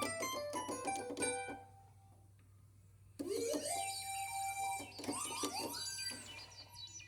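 Nord Stage 3 stage keyboard playing a plucked, guitar-like patch of quick notes, which dies away about a second and a half in; after a short pause, a synth patch comes in, its notes sliding up into pitch.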